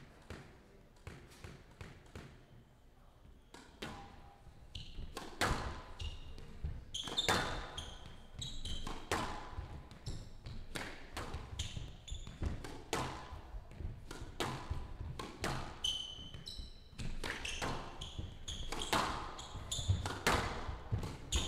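Squash rally: a squash ball being struck by rackets and cracking off the walls of a glass court, a sharp hit every second or so, with short squeaks of court shoes on the wooden floor. The hits grow louder about five seconds in.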